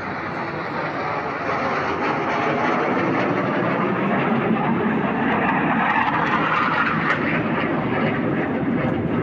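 Fighter jet flying past overhead: its engine noise builds over the first couple of seconds, stays loud and eases slightly near the end.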